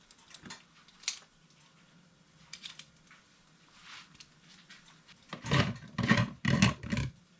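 Food-prep handling at a kitchen counter: a few light clicks and taps, then, about five seconds in, a run of four or five louder rustling knocks close to the microphone.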